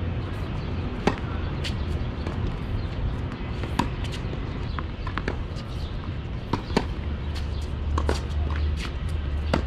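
Tennis rally on an outdoor hard court: racquets striking the ball with sharp pops about every three seconds, fainter hits and bounces in between, over a steady low rumble.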